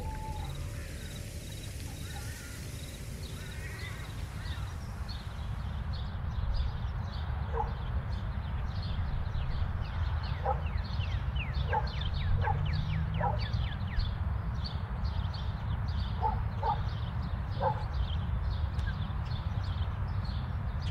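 Outdoor ambience over a steady low rumble: for the first few seconds a hissing, wind-like rustle, then birds chirping and twittering continuously, with short dog barks from a distance now and then.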